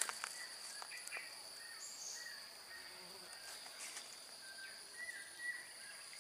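Insects trilling in a steady high drone, with short chirping calls scattered through it.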